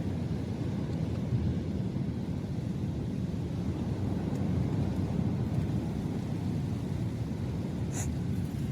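Strong sea wind blowing steadily, a low rumble on the microphone, with a faint tick about eight seconds in.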